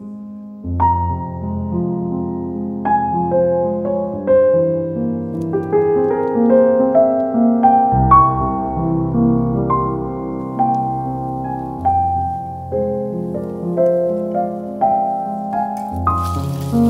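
Background piano music: a melody of separate notes over held low notes.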